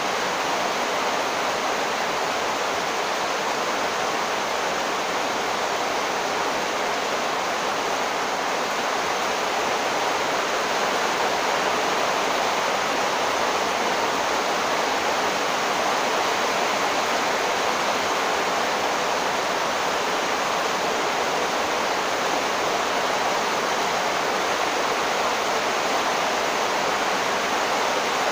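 Torrential monsoon rain pouring down, a dense, steady rush of water with no let-up.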